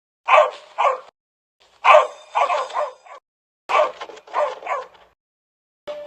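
A dog barking: about eight short barks in three quick groups of two, three and three, with silent gaps between the groups.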